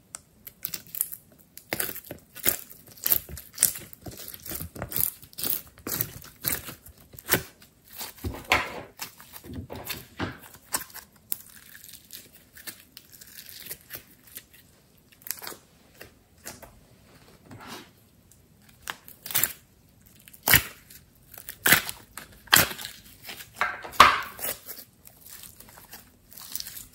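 Slime being peeled from a plastic mould and squeezed and kneaded by hand, making irregular sticky pops and crackles. The loudest pops come about three quarters of the way through.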